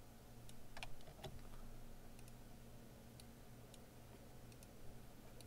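Computer mouse clicking, a dozen or so scattered clicks with two louder ones about a second in, over a faint steady low hum.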